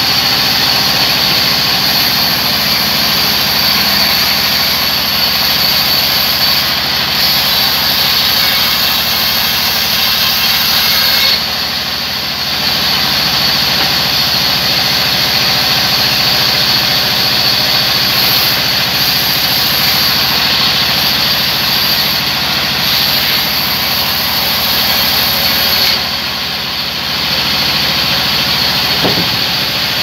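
Sawmill band saw running and cutting lengthwise through a wooden log slab: a steady, loud high-pitched machine noise that drops briefly twice, about 11 and 26 seconds in.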